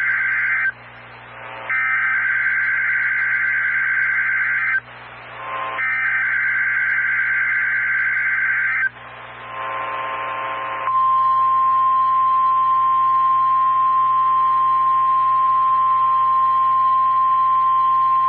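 NOAA Weather Radio Emergency Alert System SAME data header heard over a weather radio receiver: the end of one burst of harsh, buzzing digital screech, then two more bursts of about three seconds each, separated by short stretches of radio hiss. About eleven seconds in, the steady single-pitched 1050 Hz warning alarm tone starts and holds, marking the required weekly test of the alert system.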